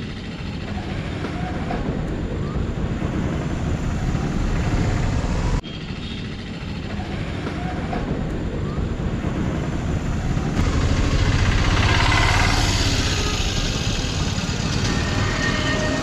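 Street traffic noise: a steady low rumble of passing vehicles, swelling for a few seconds about three quarters of the way through as one goes by close.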